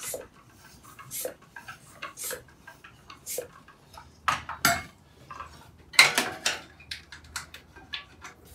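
Hand floor pump worked in strokes about once a second, pushing air into a tubeless road tire whose bead will not seat, with a louder clatter about six seconds in.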